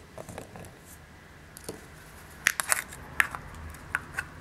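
Tiny rubber erasers dropping into a plastic container with light clicks and taps, then short plastic clicks in the second half as the hamburger-shaped container is closed with its lid.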